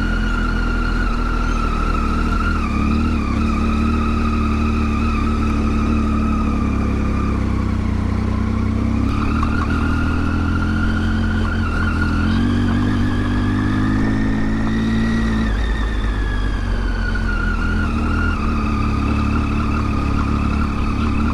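Motorcycle engine running under way, its note easing off and then climbing again a few times as the throttle changes, with a steady rush of wind and road noise.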